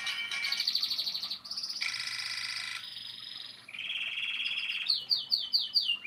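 Nokia 1112 mobile phone playing its built-in ringtones through its loudspeaker as the ringing-tone list is scrolled. Each bright electronic melody is cut off when the next begins, and it ends with a run of quick falling chirps.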